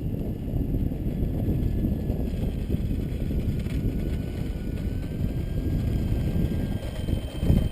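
Wind buffeting the microphone in a loud, uneven rumble, with a strong gust near the end. Under it is the faint whine of the FMS F3A Explorer's electric motor and propeller in flight, its pitch wandering a little.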